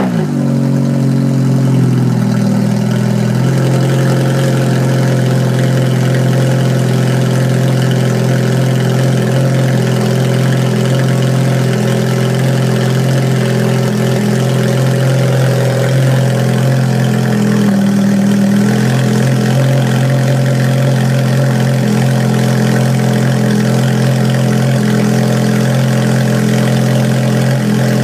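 Ferrari F430 V8 idling through a one-off aftermarket exhaust just after start-up. The raised idle falls over the first couple of seconds and settles into a steady idle, with a brief rise in pitch about 18 seconds in.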